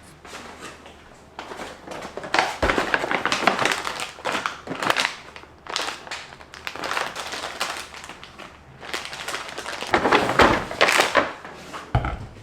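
Plastic bags and packaging crinkling and rustling as they are handled, in irregular bursts, loudest about two to five seconds in and again near the end.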